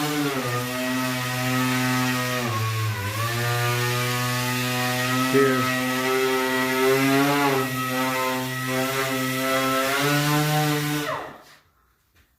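Electric power tool motor running continuously, its pitch wavering and dipping briefly about three seconds in, then winding down and stopping near the end.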